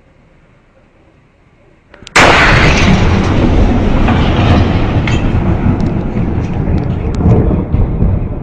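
A sudden, very loud boom about two seconds in, followed by a heavy rumbling roar that carries on for several seconds.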